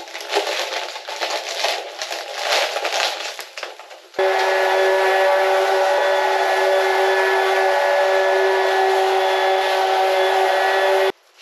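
Irregular scraping and handling noise, then a loud, steady chord of several held tones lasting about seven seconds that starts and cuts off abruptly.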